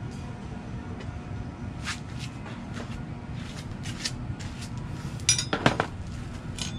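Scattered metallic clicks and taps, with a quick cluster of bright clinks a little over five seconds in, over a steady low hum.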